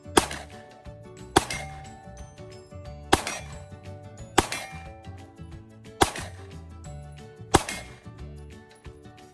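Pistol fired six times in slow, aimed fire, one shot every second and a half or so, each with a short ringing tail. Background music plays underneath.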